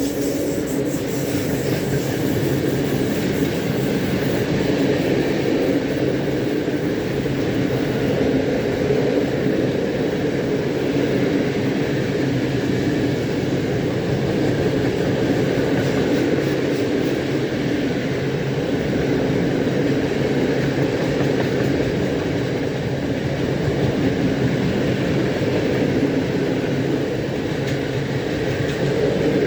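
Freight train of low-sided gondola wagons rolling steadily past behind an ET22 electric locomotive, the wheels keeping up an even, continuous rumble.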